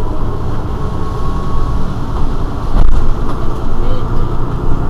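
Mercedes-Benz Citaro G C2 articulated city bus's diesel engine idling steadily at the rear of the stationary bus. A single sharp knock comes just before three seconds in.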